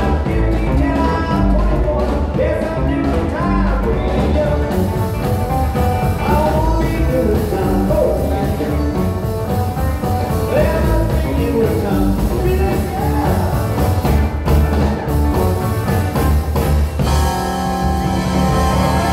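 Live rockabilly band playing: a male lead vocal over electric guitar, upright double bass and drums.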